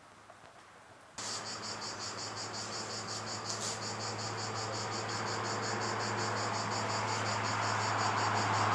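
A chorus of insects chirping in a fast, even pulse. It cuts in abruptly about a second in, over a low steady hum and a hiss that grows louder toward the end.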